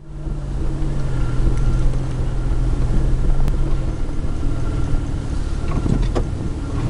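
Jeep Wrangler TJ driving slowly along a rough off-road track, heard from inside the cab: a steady low engine drone over tyre and road rumble, with a few sharp knocks a little before the end.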